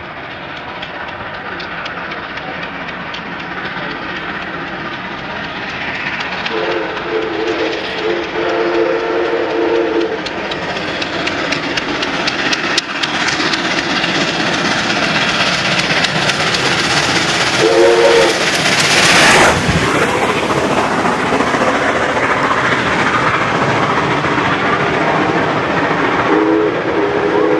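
Steam locomotive hauling a heritage passenger train, growing louder as it approaches and passes close by, loudest about twenty seconds in, then the carriage wheels clicking over the rail joints. Its two-note whistle sounds three times: a blast of a few seconds about seven seconds in, a short toot about eighteen seconds in, and again near the end.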